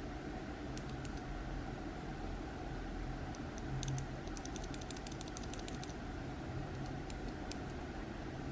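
Keys on a keyboard with Gateron mechanical switches being pressed: a few separate clicks, then a quick run of keystrokes in the middle, then a few more, over a steady low hum.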